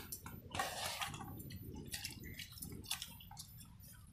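Hands mixing and scooping pakhala (rice soaked in water) in steel bowls: soft wet squelching and dripping with scattered light clicks against the metal.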